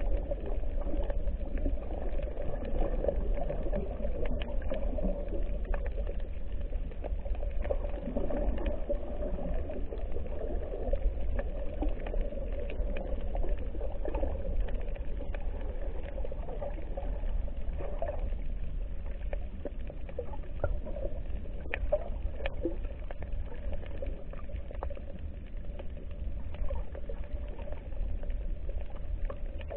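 Underwater ambience heard through a camera's waterproof housing: a muffled, steady water rumble with scattered faint clicks.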